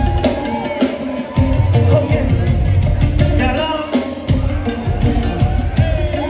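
Live band playing a song from the crowd's vantage in a concert hall: drum kit keeping a steady beat under bass and electric guitar, with a lead voice singing over it.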